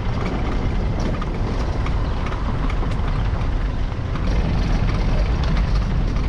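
Car driving slowly over a rutted dirt track, heard from inside the cabin: a steady low engine and road rumble with many small knocks and rattles as it goes over the bumps.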